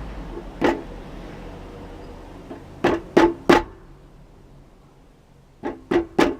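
A new rear wheel hub grease seal being driven into place by hammer taps on the old wheel bearing, which serves as a driver. Seven sharp metallic knocks that ring briefly come in groups: one, then three in quick succession, then three more. The seal is seated all the way home.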